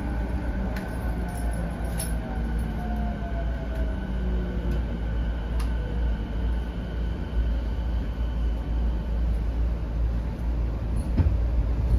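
209 series electric train heard from inside the car as it brakes into a station. Over the first few seconds the motor whine falls in pitch above a steady rumble, and a few clicks and a knock come near the end.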